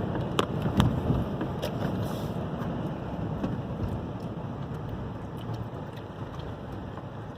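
Strong coastal wind buffeting the microphone in a low, rumbling rush that eases slowly, with a few sharp ticks in the first two seconds.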